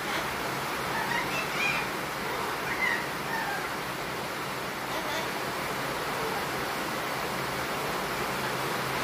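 Young blue-fronted amazon parrot chattering softly: a few short, gliding, talk-like squawks in the first few seconds and one more about five seconds in, over a steady background hiss.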